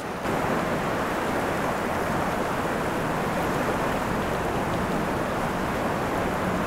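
Fast-flowing river rushing over a rocky bed: a steady, even rush of water.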